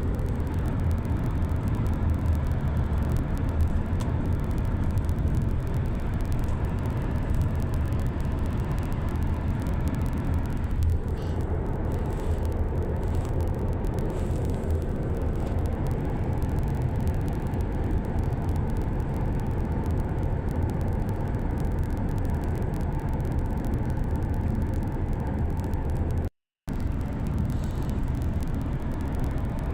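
Steady low rumble of a moving vehicle, with no break in it except a moment's total dropout near the end.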